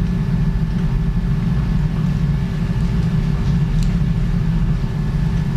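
Steady low mechanical hum and rumble of operating-room equipment, with a faint steady tone above it and a couple of faint ticks.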